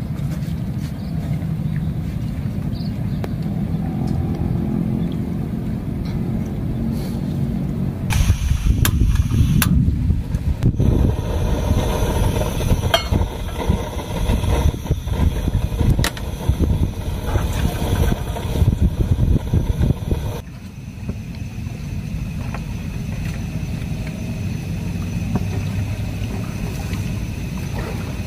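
A steady low outdoor rumble. From about eight seconds in it gives way to a louder hiss from a portable butane camp stove, with sharp clicks and knocks as a steel cup and gear are handled on a wooden table. About twenty seconds in this cuts off suddenly, and the low rumble returns.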